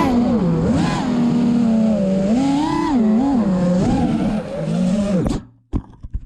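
6S FPV quadcopter's brushless motors whining, the pitch rising and falling with the throttle. The whine cuts off suddenly a little over five seconds in, followed by a few short knocks.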